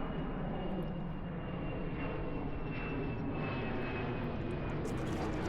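A steady engine drone with rushing noise underneath, and a thin high whine that slowly falls in pitch.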